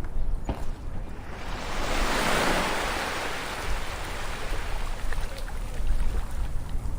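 Ocean waves on a shore: one wave swells up about a second and a half in, peaks, then washes out over the next few seconds, over a steady low rumble of surf.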